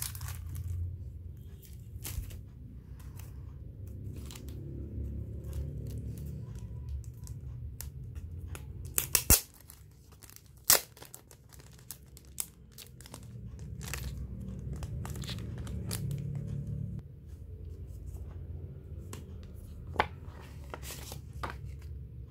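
Clear plastic cellophane packaging being crinkled and torn open by hand, with scattered sharp crackles and a few louder snaps about 9 and 11 seconds in, as a paper card is slid out of its sleeve.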